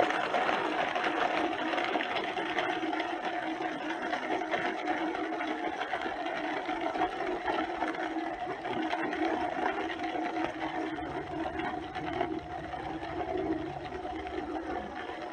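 Small electric motor running steadily with a buzzing whine.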